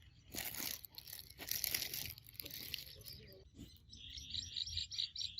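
A rustling, crunching noise for about two seconds, then near the end a quick, even run of high chirps from a bird.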